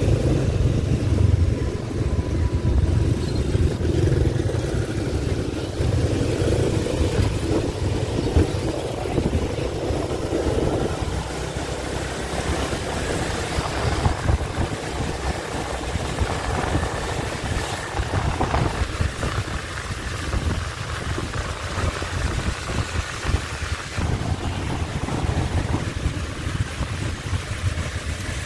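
Ride on a motorbike through city traffic: the engine running and a heavy low wind rumble on the microphone, stronger in the first half, with other motorbikes passing.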